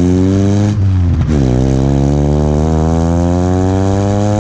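1986 Nissan 720 pickup's engine and exhaust accelerating: the pitch climbs, drops briefly about a second in as a gear is changed, then climbs steadily again.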